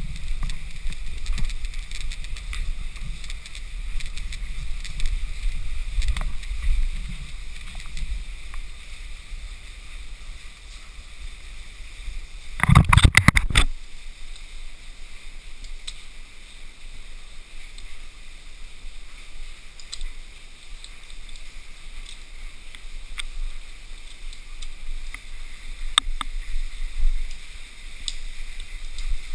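Wind on the microphone and handling noise from a camera jostled by a moving climber: a low rumble throughout. About halfway through there is a loud scraping bump lasting about a second, and a sharp click comes near the end.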